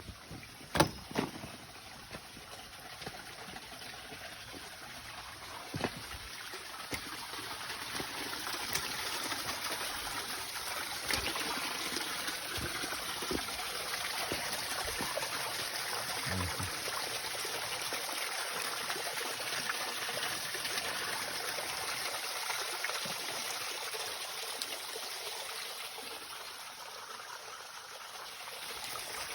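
Stream water flowing and trickling steadily, growing louder over the first several seconds and then holding. A couple of sharp knocks sound about a second in.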